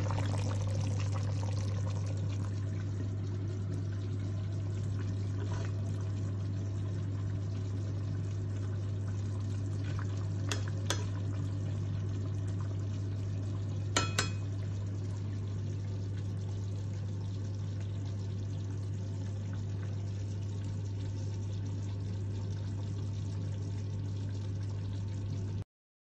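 Steady low hum with a faint hiss of kitchen background noise, broken by a few short light clicks about ten and fourteen seconds in; the sound cuts off abruptly near the end.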